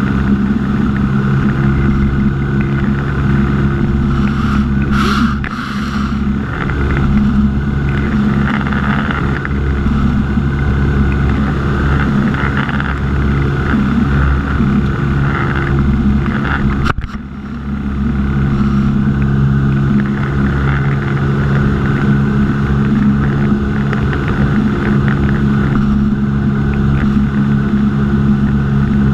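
Small aircraft's engine and propeller droning steadily, heard from inside the cockpit. About two-thirds of the way through there is a sharp click and a brief dip in level.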